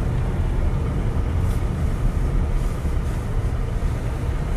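Steady low rumble of tyre and engine noise inside the cabin of a Jeep Grand Cherokee 3.6 V6 on the road.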